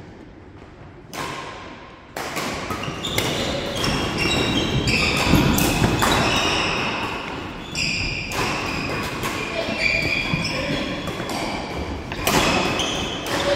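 Badminton rally: rackets striking the shuttlecock over and over, with players' footsteps and shoes on the wooden court floor, echoing in a large sports hall.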